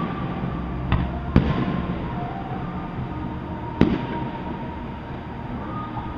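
Aerial firework shells bursting: three sharp bangs, about one second in, half a second later, and again near four seconds, each trailing off briefly.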